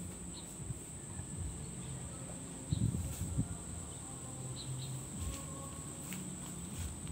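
Steady, high-pitched drone of an insect chorus, over a low outdoor rumble, with a couple of soft low thumps about three seconds in.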